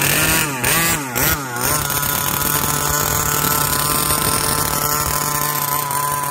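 Small 30cc two-stroke gas engine of a Baja 5T-scale RC truck revving in a few quick blips about a second in, then running at a steady pitch as the truck pulls away down the road.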